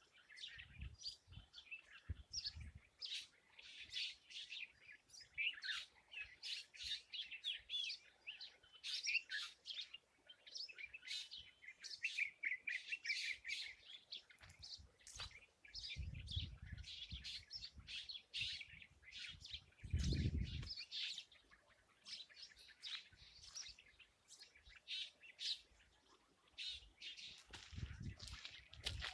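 Several small birds chirping and calling in a busy, overlapping chorus of short high notes. A few brief low rumbles break in, the clearest about 16 and 20 seconds in.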